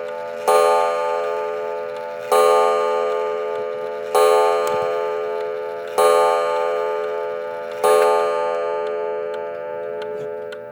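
Schoolhouse regulator wall clock striking: five ringing strikes about two seconds apart, each fading before the next. After the last one fades the clock ticks faintly.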